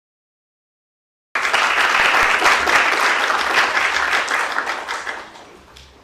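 Audience applauding, cutting in abruptly about a second in and dying away near the end.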